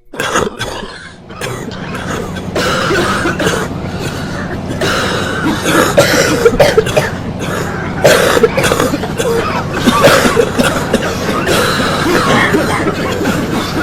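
A person coughing repeatedly in rough, irregular fits over the steady hum of air conditioning.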